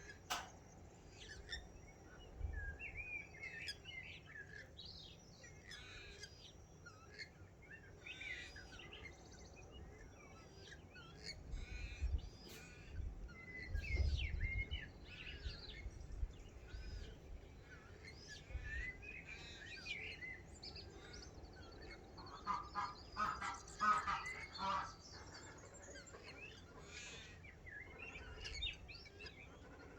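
A dawn chorus of many small birds chirping and warbling, with a run of honking waterfowl calls about twenty-three seconds in. Occasional low rumbles come and go underneath.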